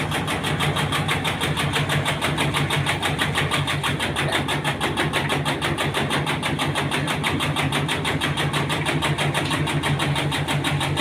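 Engine-driven tobacco cutting machine running steadily, a constant hum with a rapid, even pulse.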